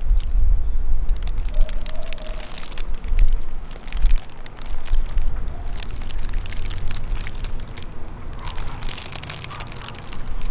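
Thin plastic food bag crinkling and crackling in the hand, with wind buffeting the microphone as a low rumble.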